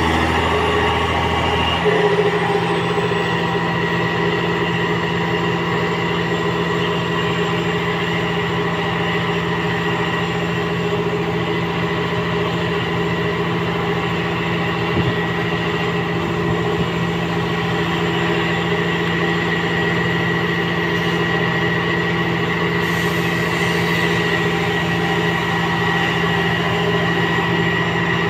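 Heavy excavator diesel engines running steadily under load, pulling a fishing boat, with a steady whine above the engine note. About two seconds in, the low engine note shifts up and then holds.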